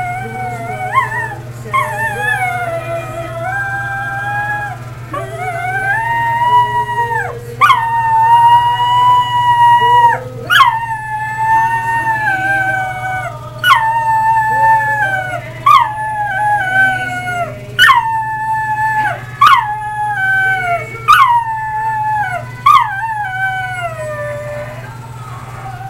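Cocker spaniel howling along to the national anthem, which plays underneath. It starts with long drawn-out howls, then from about ten seconds in gives a run of shorter howls roughly every second and a half, each starting high and sliding down in pitch.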